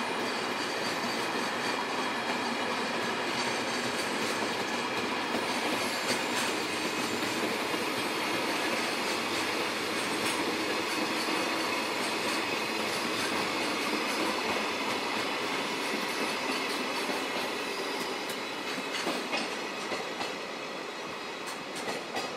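A freight train of tank wagons rolling past: a steady rumble of steel wheels on the rails, with scattered clicks as the wheels cross rail joints. The sound eases off over the last few seconds as the end of the train passes.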